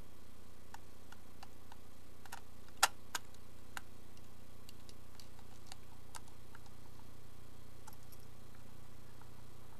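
Faint, scattered clicks and ticks of a small screwdriver driving the screw that holds a plastic truck onto an HO-scale model boxcar, with one sharper click about three seconds in, over a low steady hum.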